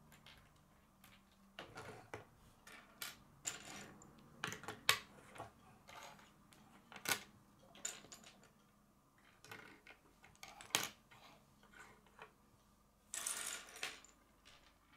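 K'nex plastic pieces being clicked and snapped together and set down on a wooden tabletop: irregular faint clicks and taps, with a denser clatter of about a second near the end.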